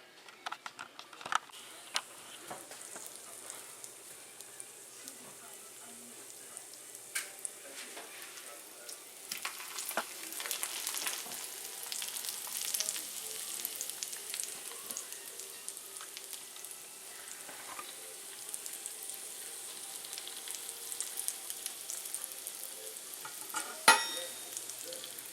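Seasoned potato wedges frying in a skillet: a steady sizzle with scattered crackles and pops as they brown. A few clicks at the start and one sharp knock near the end.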